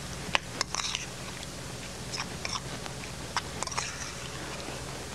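Metal spoon stirring a thick black bean sauce in a ceramic bowl: sharp clinks of the spoon against the bowl, three close together in the first second and more scattered ones later, with soft wet mixing sounds between.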